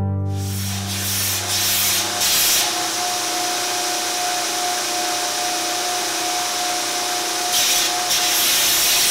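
Belt grinder running with a steady whine, its abrasive belt sanding a wooden hammer handle; the sanding hiss swells about two seconds in and again near the end as the wood is pressed to the belt.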